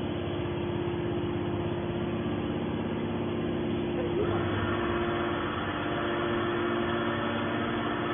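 Horizontal hydraulic scrap-metal baler running: a steady mechanical hum with a constant tone, turning brighter and slightly louder about four seconds in.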